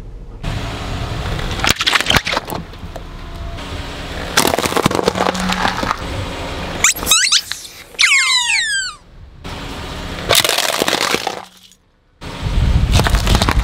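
Objects being crushed one after another under a car tyre: plastic cracking and breaking, and rubber squeaky toys squealing in several sharply falling squeaks as they are flattened, followed by another loud crunch of breaking plastic.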